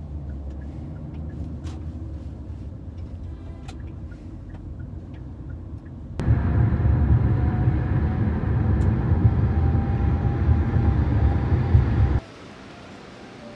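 Inside a car's cabin: a steady low road rumble from the car on the move, with a few light clicks. It cuts to a louder rumble about six seconds in, then drops to a quiet even hiss near the end.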